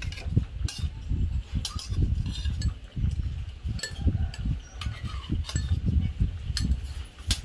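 Scattered light clicks and clinks of kitchenware being handled, over a low rumble.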